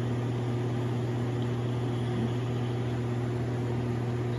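Air conditioner unit running with a steady low electrical hum over an even fan hiss. The owner describes it as sounding like something trying to activate inside, and wonders if the unit may be out of Freon.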